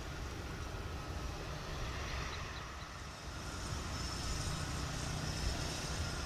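Airbus A400M military transport on the runway, its four TP400 turboprop engines running as a steady distant rumble, with a high whine coming up about halfway through.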